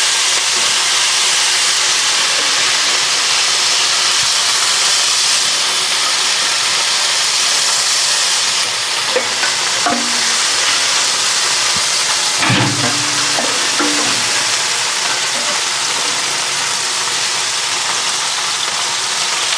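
Pork spare ribs sizzling on the hot grates of an offset reverse-flow smoker, a steady hiss of fat and mop sauce spattering as they are basted. The sizzle is the sign of a hot-and-fast cook, with the pit running at about 300°F.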